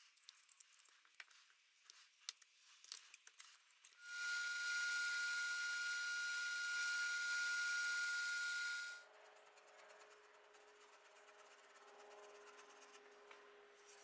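Faint rustling and clicks as the old wrap is pulled off a wooden katana handle core, then about four seconds in a belt grinder runs with a steady high whine while it grinds down the sides of the wooden handle core. The grinding stops abruptly about nine seconds in, leaving a quieter hum.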